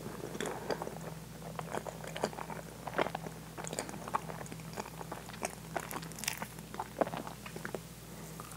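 Close-miked wet chewing and mouth sounds of eating very soft, custardy French toast with whipped cream: irregular soft smacks and small clicks, a few each second.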